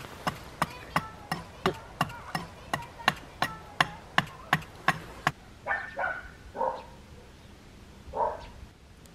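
A dog barks three times in quick succession, then once more near the end. Before the barks, a run of sharp, evenly spaced knocks goes at about three a second, then stops.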